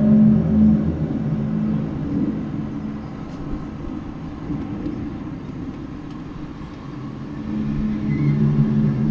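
Unexplained low droning hum of several steady held pitches, the kind of 'strange sound' heard from the sky, which the recorder calls really strange and cannot identify. It fades about a second in and swells back in near the end.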